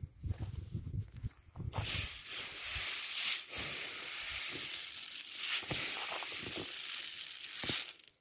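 Close rustling of a woven plastic grain sack and the loose threshed seed in it: a steady high hiss that sets in about two seconds in and stops just before the end, with a few sharper crackles.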